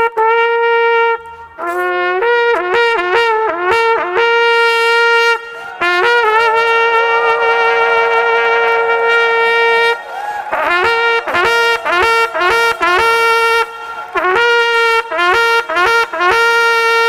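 Trumpet sounding a call: a run of short blasts, one long held note lasting about four seconds, then more quick repeated blasts, mostly on one high note with brief lower notes leading into it.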